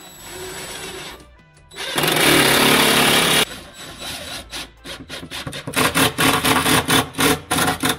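Cordless DeWalt driver driving screws into a furniture-board panel. A loud continuous run comes about two seconds in, then rapid repeated short bursts in the last couple of seconds. Background music plays underneath.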